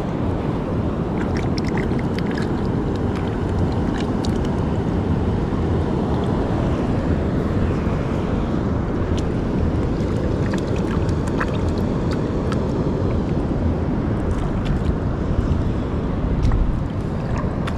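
Steady wind rumbling on the microphone over waves washing across a shallow reef, with a few faint clicks scattered through.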